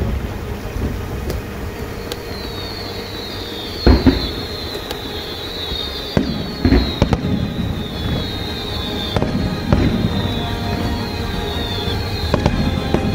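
Aerial fireworks shells bursting in a string of about half a dozen bangs, the loudest about four seconds in, over background music.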